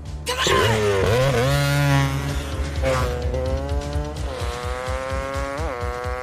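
A vehicle engine revving hard, its pitch climbing and sagging, then running on with small surges, under film score music.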